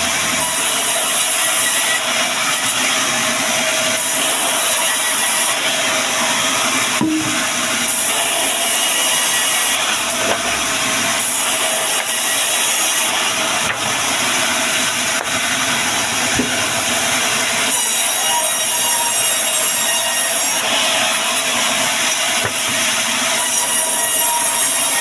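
Band sawmill running, its blade cutting through timber with a steady, unbroken sawing noise and a steady tone beneath it.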